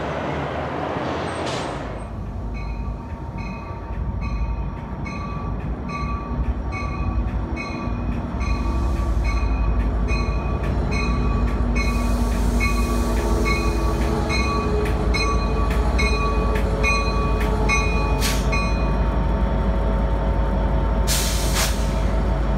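Passenger diesel locomotive (EMD F59PHI) rumbling in as it pulls slowly into a station, its bell ringing steadily every half second or so. The rumble grows louder as it nears, and a brief hiss of air comes near the end. The first couple of seconds are only wind and traffic noise.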